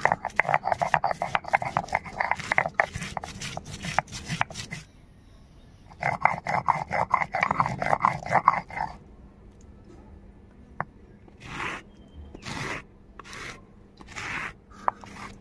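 Stone roller being rocked back and forth over a stone grinding slab, crushing ginger, garlic and red chilies into a paste: two bursts of rapid rough grinding strokes with a short pause between, then a few slower, separate scraping strokes near the end as the paste is gathered.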